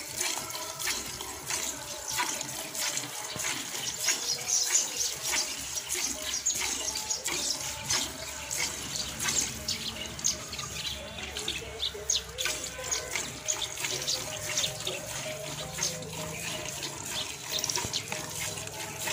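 Jets of milk squirting into a steel bucket as a water buffalo is milked by hand, a quick irregular series of spurts and splashes.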